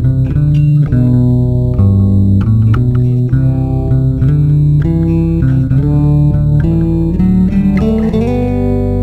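Guitar music: a line of plucked notes over a moving bass line, settling into a held chord near the end.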